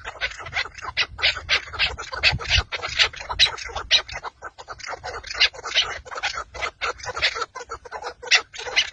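Chukar partridges calling: a rapid, unbroken run of short, sharp chuk notes, about three or four a second.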